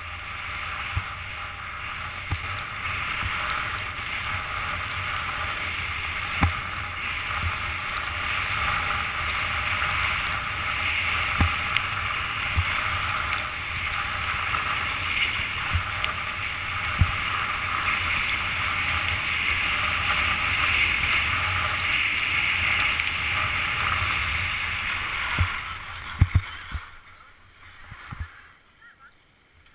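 Steady rushing of skis sliding and scraping on packed snow, mixed with wind on a GoPro, with scattered knocks from bumps in the run. It fades away about 26 seconds in as the skier slows to a stop.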